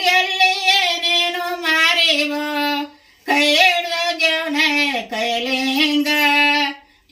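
Women singing a Kannada devotional folk song without instruments, in long drawn-out notes with a wavering pitch, with a short break for breath about three seconds in and another near the end.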